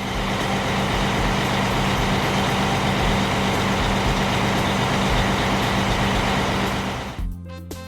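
Heavy gravel truck's engine running steadily with a dense rattling noise over a low hum, stopping abruptly about seven seconds in.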